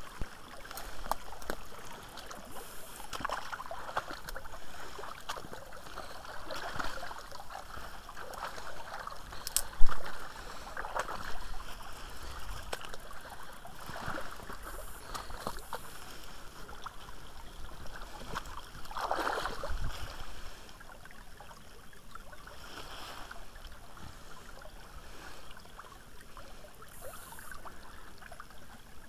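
Small forest brook trickling and gurgling, with irregular rustles of leaves and branches and one sharp knock about ten seconds in.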